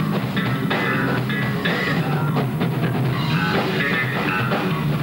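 A rock band playing, with a drum kit and a guitar.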